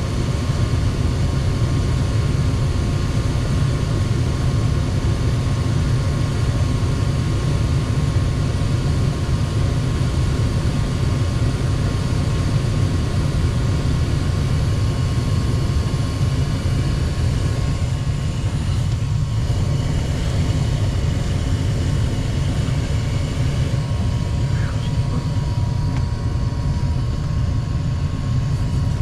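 Goodman gas furnace running steadily after a new hot surface igniter was fitted, a loud, even low rumble with a faint hum over it. The furnace has lit and is firing normally.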